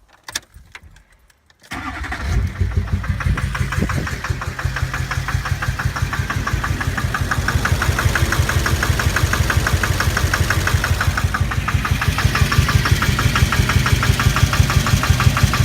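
2006 GMC Duramax 6.6-litre V8 turbodiesel starting after a couple of faint clicks, then idling with a heavy, rhythmic knock that sounds like a helicopter. The knocking comes from a failed fuel injector after a tank of bad fuel.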